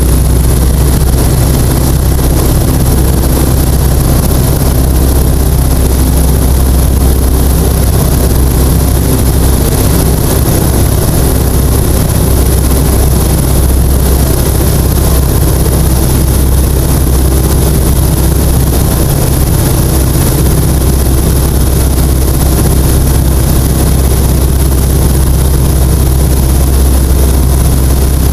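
Citabria light aircraft's engine and propeller running at steady power in flight, a loud even drone heard from inside the cockpit.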